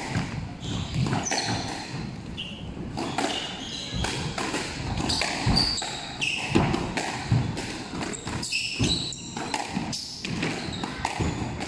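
Squash rally: the ball struck by rackets and cracking off the walls and wooden floor in irregular thuds, ringing in the enclosed court, with short high squeaks of shoes on the floor.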